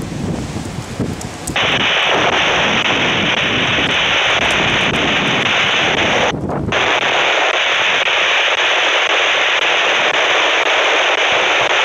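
Loud, steady hiss of static from a firefighter's handheld radio, cutting in abruptly about a second and a half in, with a brief break around six seconds. Before the static, wind rumbles on the microphone.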